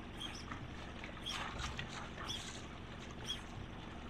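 Small fishing boat's outboard motor running low and steady at trolling speed, with a short high chirp repeating about once a second.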